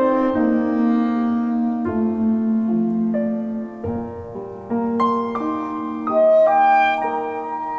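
Clarinet and grand piano playing a slow, lyrical classical piece together, the piano to the fore, with chords changing every second or so.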